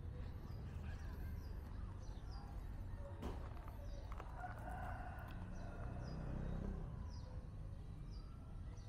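Outdoor ambience: a small bird chirping in short, falling notes about twice a second over a steady low rumble, with a longer bird call around the middle and a single click about three seconds in.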